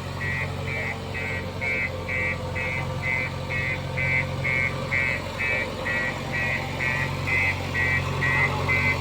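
JCB 3DX backhoe loader's reversing alarm beeping steadily, about twice a second, over the steady hum of its diesel engine.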